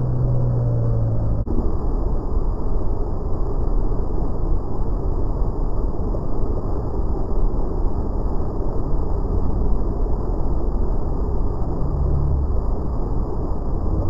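Waterfall: river water pouring over a rock ledge into a churning pool, a steady loud rush.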